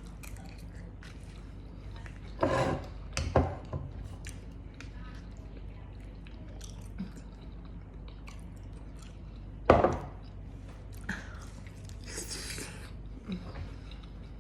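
A person eating a plated home-cooked dinner: quiet chewing between a few sudden louder knocks and scrapes, the loudest a bit under ten seconds in.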